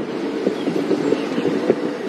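Safari game-drive vehicle's engine running at idle, a steady low hum.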